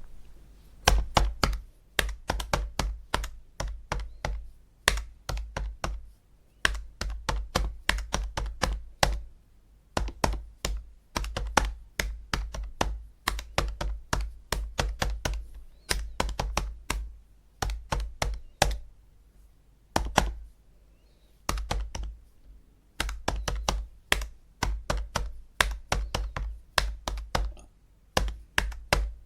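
Calculator buttons being pressed in quick runs of plastic clicks, several a second, with short pauses between runs.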